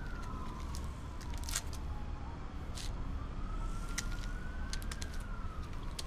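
A siren wailing, its pitch slowly sliding down, back up and down again, over a steady low rumble, with scattered sharp clicks and crackles.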